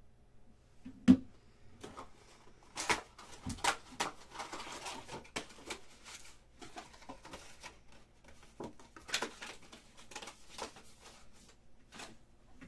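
Cardboard trading-card boxes and packs being handled on a table: scattered taps, clicks and rustling, with a sharp knock about a second in as the loudest sound.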